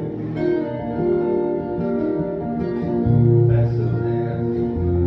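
Two acoustic guitars playing live in an instrumental stretch of a song, plucked and strummed, with a strong low note coming in about three seconds in.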